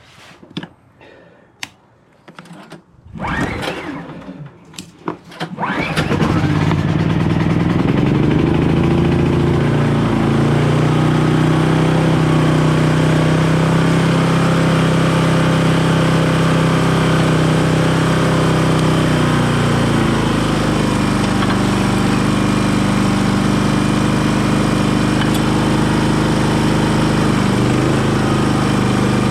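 A portable gasoline generator is started about six seconds in, after a few clicks and knocks, and then runs steadily. Its engine note shifts slightly twice.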